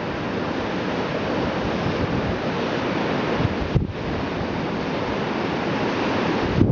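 Wind blowing on the microphone: a steady rushing noise with gusty low buffeting, dipping briefly about four seconds in.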